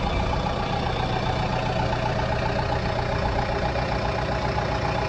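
Kubota M6040 tractor's four-cylinder diesel engine idling steadily, heard from inside the closed cab.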